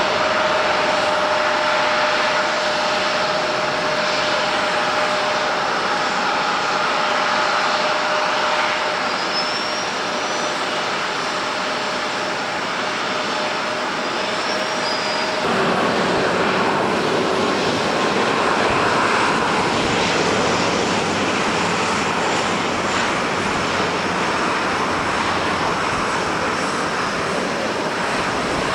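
Airliner engines running with a steady whine over a dense rush of noise, in heavy rain and gusty wind. About halfway through the sound changes abruptly, the whine dropping away and a deeper rumble taking over.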